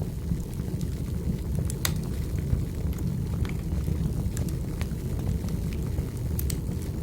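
Wood fire burning in a fireplace: a steady low rumble of flames with scattered sharp crackles and pops of the burning logs.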